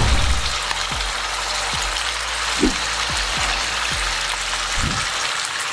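Ghee sizzling steadily in a pan as cashews, almonds and raisins fry gently in it, with a few low knocks.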